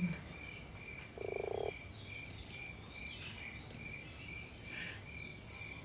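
A single short buzzing croak about a second in, over faint, even chirping that repeats about three times a second.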